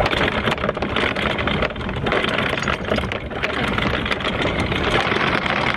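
Anchor windlass paying out anchor chain, a motor running with a fast, uneven rattle of chain links over it.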